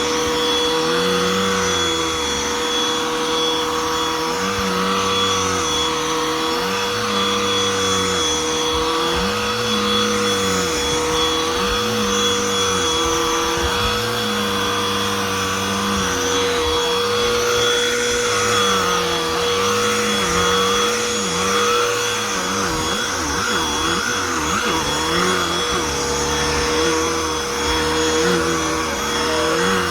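BLACK+DECKER Dustbuster AdvancedClean+ cordless handheld vacuum running steadily with a constant motor whine. Under the whine, a lower hum rises and falls in pitch every second or two.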